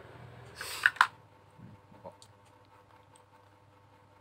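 A short breathy rush, then a single sharp plastic click about a second in, like a makeup compact snapping open. A few faint small clicks follow as the makeup is handled.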